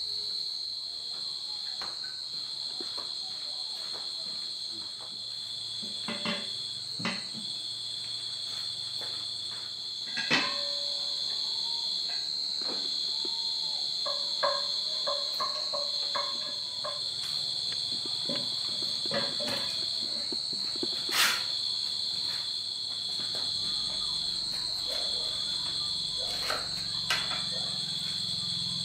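Insects chirping: a steady high-pitched drone, with a second insect trilling just below it in repeated phrases a second or two long. Scattered light knocks sound among them.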